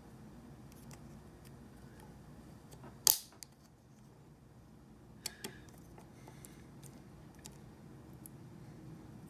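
Hemostats and the trimmer head's plastic parts being handled: scattered small clicks, with one louder snap about three seconds in and a smaller double click a couple of seconds later, over a faint steady low hum.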